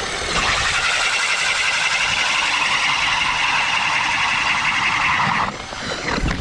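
Power ice auger drilling a hole through lake ice, a steady motor-and-cutting sound for about five seconds that stops near the end.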